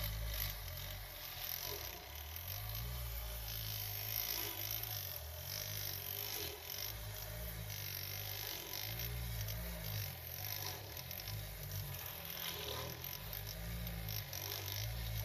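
Miniature rotary-brush carpet cleaning machine spinning on a wet, foamy rug: a continuous wet scrubbing and swishing as the brush is worked back and forth through the soap.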